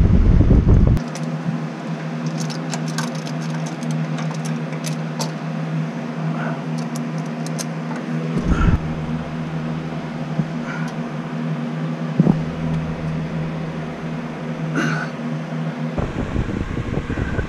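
Steady hum of an electric fan, with scattered light metallic clicks and taps from a cap-style oil filter wrench and ratchet being handled. A deep rumble of wind noise on the microphone covers the first second and returns near the end.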